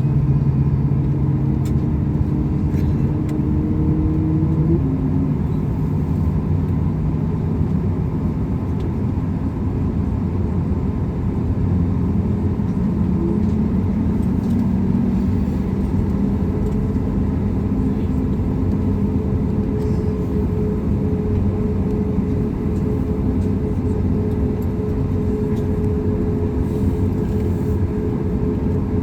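Boeing 737 MAX 8's CFM LEAP-1B turbofan engines running at idle, heard inside the cabin as a steady low hum. The pitch of the hum shifts about five seconds in, then holds steady again.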